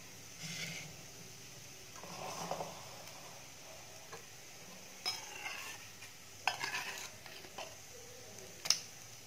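A steel spoon scraping and stirring through mashed rice in a stainless steel bowl, with a few sharp clinks of the spoon against the bowl.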